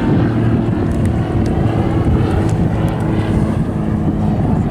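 Single-engine propeller aerobatic aircraft flying overhead, its piston engine note shifting in pitch as power changes, with wind noise on the microphone.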